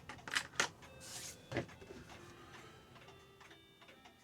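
Metal clock-movement parts clicking and clinking as they are handled on the bench: two sharp clicks near the start, a brief rustle about a second in, another click soon after, then fainter small clicks.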